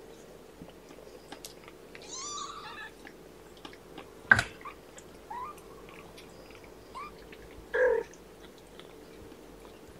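Young kittens, about three weeks old, mewing: a wavering, high mew about two seconds in, then short rising squeaks around five and seven seconds, and a louder, lower call near the end. A single sharp click a little after four seconds is the loudest sound.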